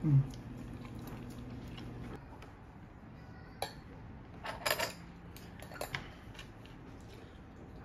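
Metal chopsticks clicking against bowls and dishes a few times while eating, with a small cluster of clicks about the middle. A low steady hum in the first two seconds cuts off suddenly.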